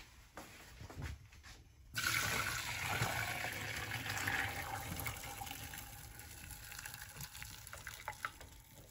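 Hot spiced cooking water being poured off par-boiled basmati rice to drain it: a rush of pouring water starts suddenly about two seconds in and slowly tapers off as the pot empties.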